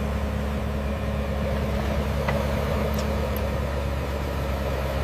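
Heavy construction machine's diesel engine running steadily, a low even drone with no change in pitch. Two faint ticks sound about two and three seconds in.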